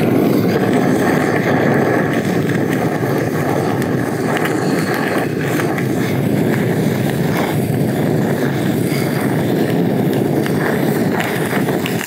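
Handheld gas torch flame hissing steadily as it sears mayonnaise on a piece of nigiri.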